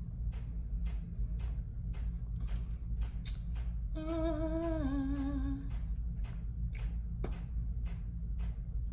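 A woman humming a short, wavering 'hmm' with closed lips about four seconds in, falling in pitch over under two seconds. Under it run a steady low hum and faint, even ticks about three times a second.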